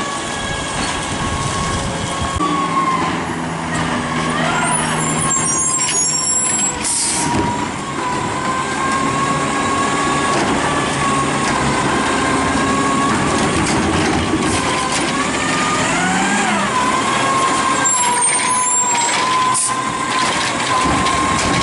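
2010 DaDee Scorpion automated side-loader garbage truck running, with a steady high hydraulic whine as its arm works carts and short sliding changes in pitch as the arm moves. Brief air-brake hisses about seven seconds in and again near the end.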